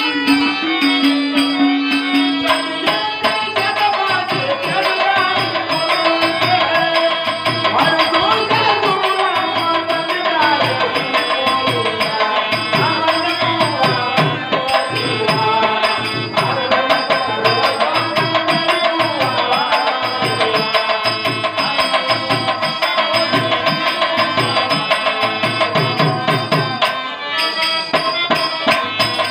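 Live folk-theatre music: a held melody and drone over hand drums keeping a steady beat, accompanying a dance.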